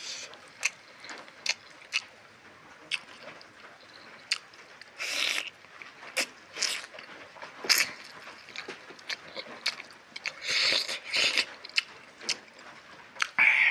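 Close-miked eating of rice and curry by hand: wet chewing and sharp lip-smacking clicks throughout, with a few longer, noisier mouth sounds about five seconds in and again around ten to eleven seconds.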